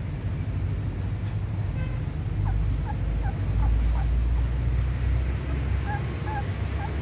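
Young puppies whimpering in short, high squeaks, a few a second from about two seconds in, as they jostle to suckle from their standing mother. A low rumble runs underneath.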